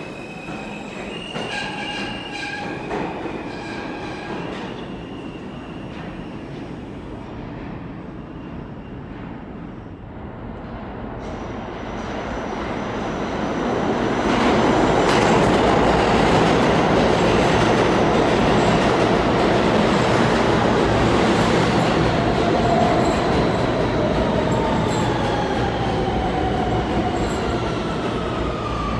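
R160 New York City subway train coming along the track beside the platform, the wheel and rail noise building to loud about halfway through, then a motor whine falling in pitch as it slows. Near the start, fainter stepped motor tones from a departing train fade away.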